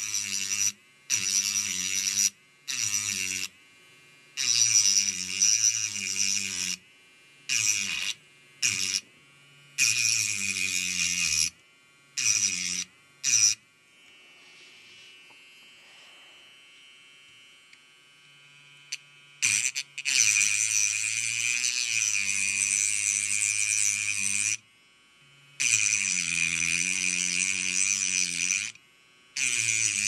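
Mini Dremel precision rotary tool grinding through the thin metal shield on a phone motherboard in repeated stop-start passes: a high, hissing grind over the small motor's hum, whose pitch wavers as the bit bites. The passes are short, about a second each, through the first half, pause for several seconds around the middle, then run longer, about four to five seconds each, near the end.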